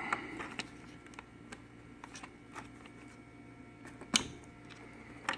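Scattered small clicks and ticks of hands working inside an iMac, freeing the hard drive's screws and cables, with one sharper click about four seconds in.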